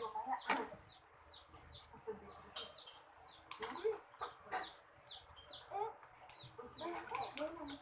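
Birds chirping: a steady run of short, high chirps, each falling in pitch, about two a second, with a few soft clicks and knocks around the middle.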